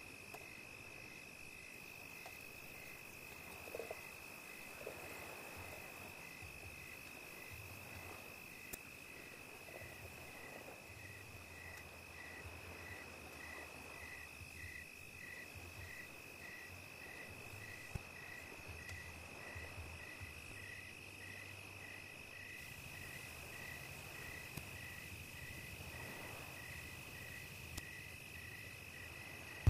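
Insects calling steadily: one gives a continuous high trill while another pulses about twice a second. A few faint clicks of cookware sound now and then.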